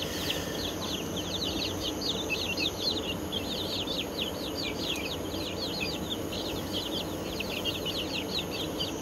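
A brood of chicks peeping continuously: many short, high, downward-sliding peeps, several a second, over a steady low hum.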